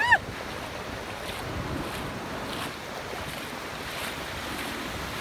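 Small surf waves breaking and washing through shallow water, with wind buffeting the microphone. Right at the start, a short high-pitched cry rises and falls.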